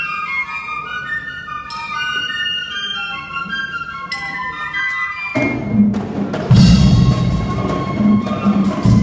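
Cadet brass band playing: a high melody sounds on its own, then about five and a half seconds in the full band comes in loud, with deep low brass and drum strikes.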